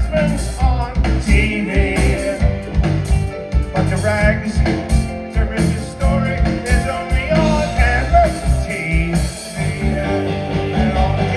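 A live rock band playing with a lead singer, over a steady driving beat with bass and guitar.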